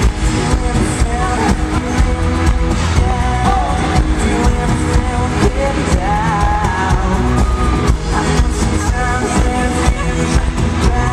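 Live pop-rock band playing through a concert sound system, heard from the audience: electric guitars, bass and a steady drum beat, with a lead vocal line coming in at times.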